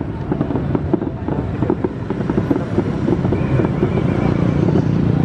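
Distant aerial fireworks bursting: a dense run of irregular pops and crackles over a steady low rumble.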